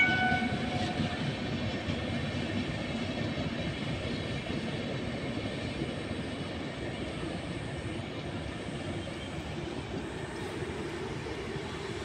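Passenger express hauled by a WAP-7 electric locomotive running past, the tail of a horn blast cutting off right at the start. Then a steady rumble of the coaches' wheels on the track that slowly fades as the last coaches go by.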